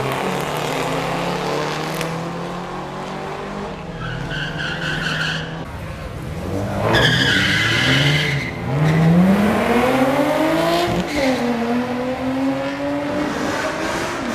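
Drag-racing cars' engines running on the strip, with two short tire squeals midway. Then a pair of cars launches hard, the engine note climbing steadily, dropping at a gear change and climbing again near the end.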